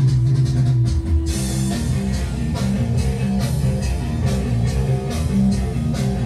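Rock music with guitar and a drum kit, starting loud and keeping a steady beat.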